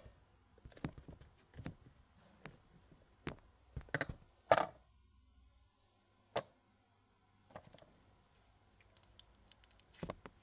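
Homemade pink slime squeezed and stretched by hand, giving irregular sticky clicks and pops, the loudest about four and a half seconds in.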